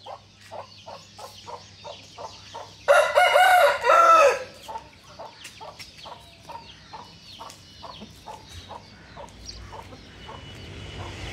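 A rooster crows once, loudly, about three seconds in, for about a second and a half. Under it a hen clucks steadily, about three clucks a second, and chicks peep thinly.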